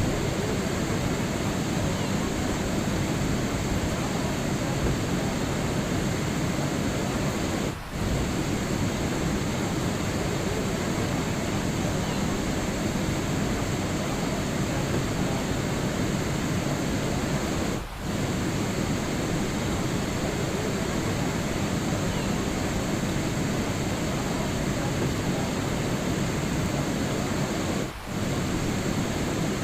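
Steady rain noise, an even hiss with no separate drops standing out. It dips briefly three times, about ten seconds apart.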